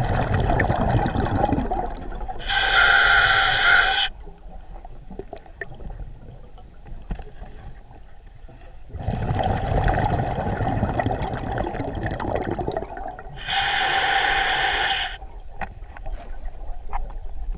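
Scuba diver breathing through a regulator underwater: two full breaths, each a longer rush of exhaled bubbles and a shorter hissing inhale, with a quieter pause between them.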